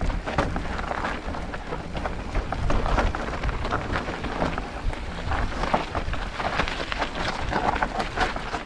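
E-mountain bike riding down a rough natural trail: a steady clatter of tyres, frame and drivetrain over stones and roots, with wind rumbling on the microphone.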